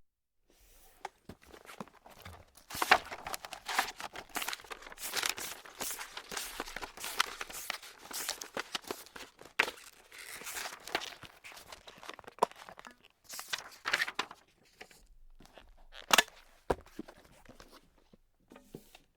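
Paper being crumpled and crinkled by hand: a dense run of crisp crackles and sharp snaps that comes in waves with short lulls.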